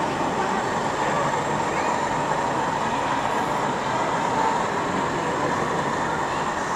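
Steady exhibition-hall background hum and crowd chatter, with an OO gauge model diesel locomotive running slowly along the layout's track.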